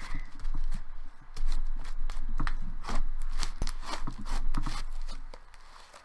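Thick yellow slime being squished and kneaded by hand, giving a quick irregular run of wet clicks and pops that quieten about five seconds in.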